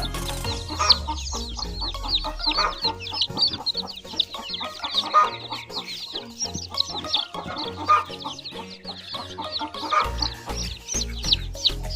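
A brood of newly hatched Aseel chicks peeping constantly in rapid, high chirps, with a hen clucking now and then.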